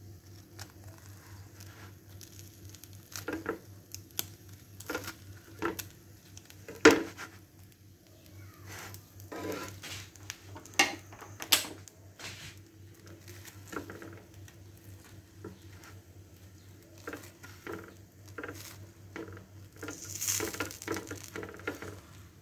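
Knife cutting a toasted sandwich on a flat griddle pan (tawa), the blade clicking and scraping against the pan in irregular strokes, loudest about seven seconds in, over a steady low hum.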